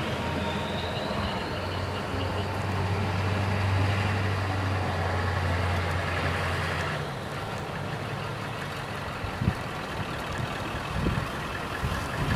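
A heavy vehicle's engine running with a steady low drone and a faint high whine; the drone stops about seven seconds in. Wind then buffets the microphone in gusts near the end.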